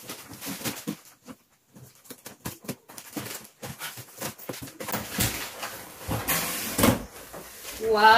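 Scissors snipping through packing tape on a cardboard box, with crackling of tape and cardboard, then louder scraping rustles as the box flaps are pulled open about five and seven seconds in. A voice starts a drawn-out note at the very end.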